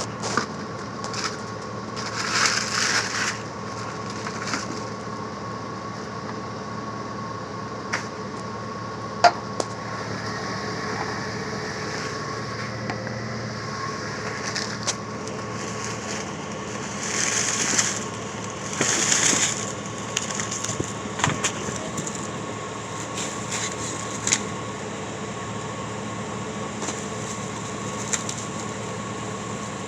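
Rummaging through a dumpster: bags and packaging rustling in a couple of short bursts, with scattered sharp knocks and clicks, over a steady mechanical hum.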